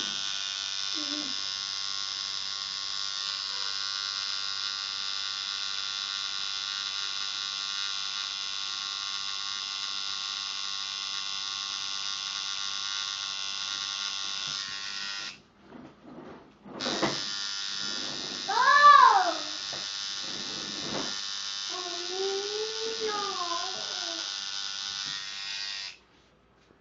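Coil tattoo machine buzzing steadily as it runs on the skin, stopping for about a second and a half near the middle, then starting again. A loud rising-and-falling voice-like cry cuts in over the buzz a couple of seconds after it restarts.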